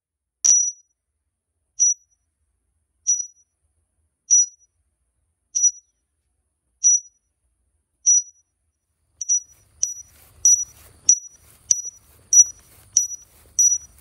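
A single high-pitched ping repeating about once every second and a quarter, quickening to nearly two a second from about nine seconds in, with a faint low sound entering underneath: the build-up of a music track's intro.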